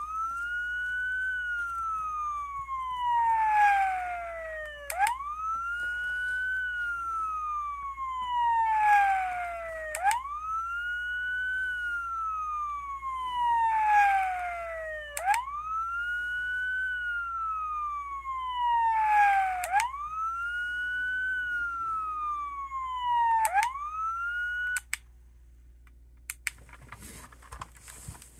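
Toy police car's electronic siren playing a wail: a tone that rises quickly and then falls slowly, repeating about every five seconds, five times over. It cuts off about 25 seconds in, followed by a few light clicks.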